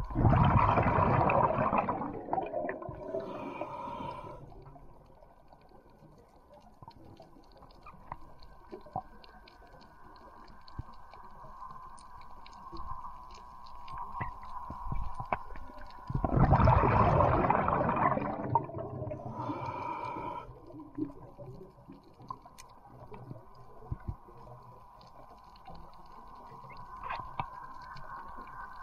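Underwater sound picked up by a submerged camera: a steady high hum throughout, broken twice by a loud whooshing water rush of about two seconds, once at the start and again about 16 seconds in.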